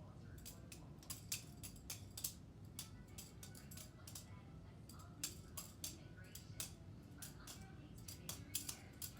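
Bear Ops balisong being flipped: irregular, sharp metallic clicks and clacks, several a second, as the stainless steel handles swing on the bearing pivot and strike each other and the blade.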